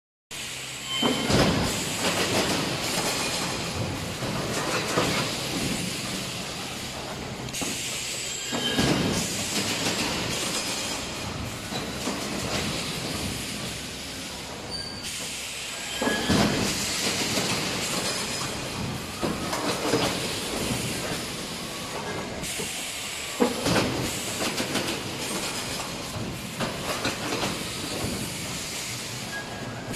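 EPS 3D wire-mesh panel welding machine running, with air hiss and metallic clatter. Louder surges come roughly every seven seconds as it cycles.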